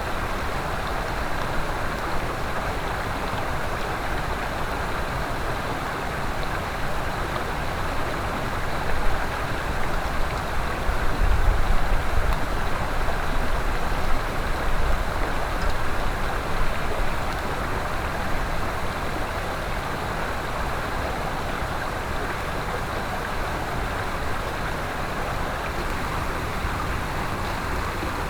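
Mountain stream rushing steadily over rocks, an even wash of water noise. From about nine to seventeen seconds in, a few low rumbles and bumps rise over it.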